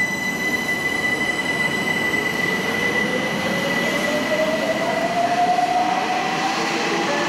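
London Overground Class 378 electric train pulling away and accelerating, its traction motors whining with a slowly rising pitch. A steady high-pitched tone sounds over it and fades out about halfway through.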